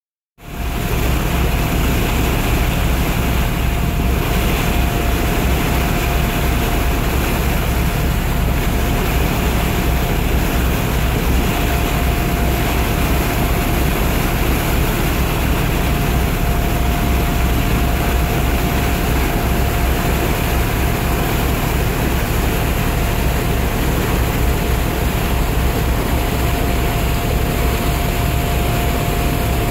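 Boat's engine running steadily under way: a constant low rumble with a thin steady whine through it.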